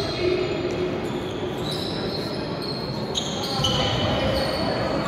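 A basketball dribbled on a gym floor during play, with short high squeaks over the steady noise of a large echoing hall.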